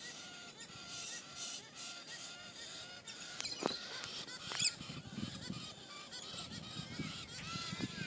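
A flock of galahs calling: many short, repeated, overlapping calls, with a few sharper, higher calls near the middle.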